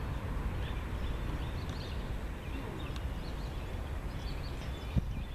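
Passing autorack freight train, a steady low rumble, with birds chirping now and then.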